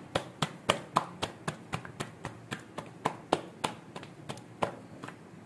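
Paratha dough being slapped and patted between the hands to stretch it: a quick, even run of soft smacks, about three or four a second, that stops near the end.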